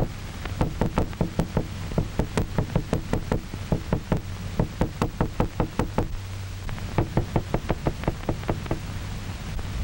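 Small hammer tapping rapidly on a tabletop, about four knocks a second, with a short break about six seconds in. A steady low hum and hiss from the old optical soundtrack run underneath.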